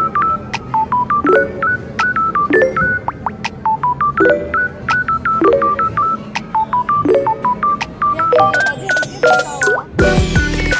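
Claw machine's electronic beeping tune: short high beeps in a quick repeating pattern over a lower note that returns about every second and a half. Near the end, sweeping electronic sounds come in, and a louder, fuller burst of sound starts just before the end.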